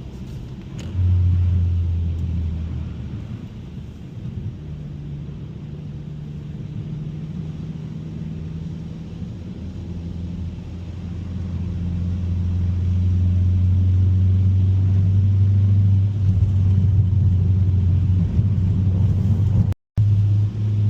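2021 Mazda 3 Turbo's turbocharged 2.5-litre four-cylinder and tyres droning steadily, heard from inside the car while driving. It gets louder from about halfway through, and the sound cuts out for a moment near the end.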